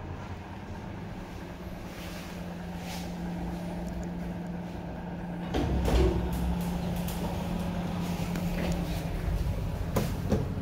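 Old Toshiba bottom-drive traction lift arriving at a landing: a steady hum, then a thump about five and a half seconds in as the stainless-steel car and landing doors slide open, followed by clicks and knocks from the door gear.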